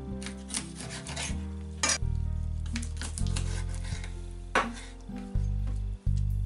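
Background music with a bass line that steps from note to note, with a few sharp knocks and scrapes over it from a chef's knife cutting through chicken wings onto a bamboo cutting board.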